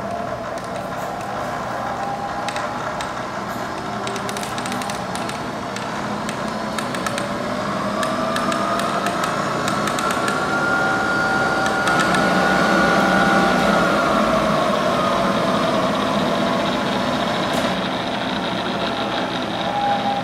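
Bridgeport Series 1 vertical mill's 2 hp variable-speed head running, its whine rising in pitch over several seconds, holding, then falling again as the spindle speed is turned up and back down.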